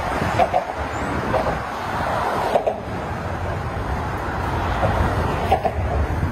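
Road traffic passing on the bridge roadway below: a steady rumble of car tyres and engines.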